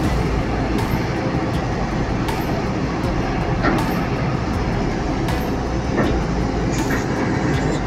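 Steady rumble and rush of a ship underway, heard from its open deck, with a few faint clicks.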